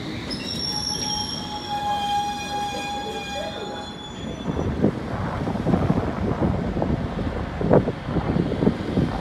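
London Underground S-stock train moving along the platform, giving several steady high whining tones. About four seconds in, this cuts to gusty wind buffeting the microphone over a low rumble of trains.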